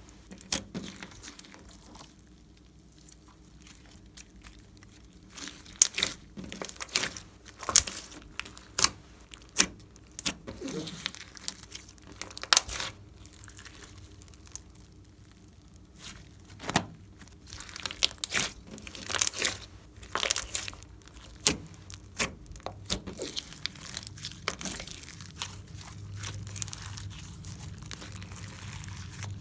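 Slime being kneaded and stretched by hand, giving irregular sticky pops and crackles, with a few quieter pauses in between.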